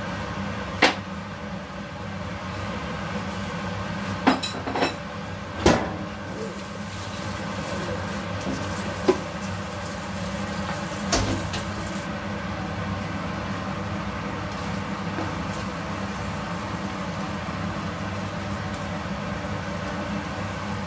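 Steady hum of a kitchen extractor hood fan, with a few sharp clicks and knocks, several close together around four to six seconds in and one more near eleven seconds.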